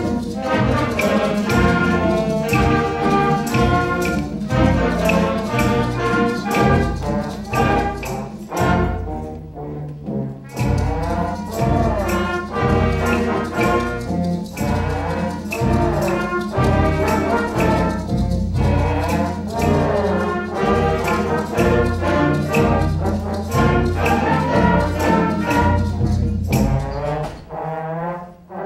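Elementary school concert band playing a piece with a steady beat, the trombone section standing and carrying the tune over clarinets and saxophones. The playing thins out near the end.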